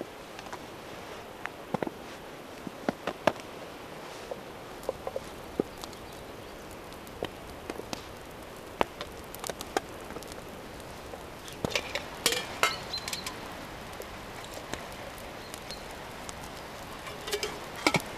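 Irregular short, sharp clicks and taps of small objects being handled, over a steady background hiss. The clicks come in denser flurries about twelve seconds in and again near the end.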